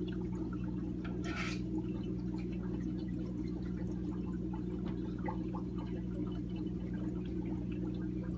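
Aquarium water running with scattered faint drips over a steady low electrical hum, with a brief louder splash about a second and a half in.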